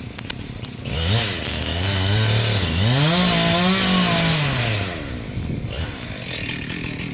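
Chainsaw revving up from idle about a second in, climbing in pitch in two steps to full throttle, holding briefly, then dropping back to idle near the five-second mark.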